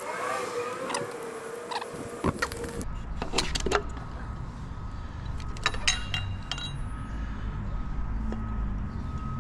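Scattered metallic clicks and clinks of tools and engine parts being handled during an engine teardown, over a low steady rumble that comes in about two seconds in.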